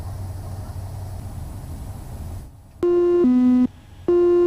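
Steady drone of the Cessna 208 Caravan's turboprop in the cockpit. About two and a half seconds in, the autopilot disconnect warning sounds: a loud two-note falling tone, played twice.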